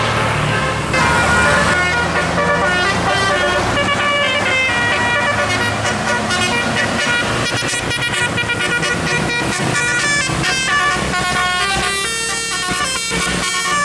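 Bus 'telolet' musical air horn playing a fast melody of many short notes stepping up and down in pitch, starting about a second in, over the bus engine's low running in the first few seconds.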